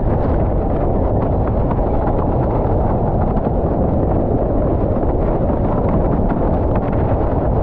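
Loud, steady wind rumble on a GoPro Hero9 Black's microphone from a windsurfer planing fast in a 20–40 knot gale. Mixed in are water rushing under the board and many light knocks as the board skips over the chop.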